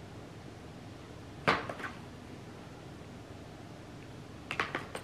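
Small items being handled and set down on a table: a sharp knock about one and a half seconds in, a lighter click just after, and a quick run of light clicks near the end.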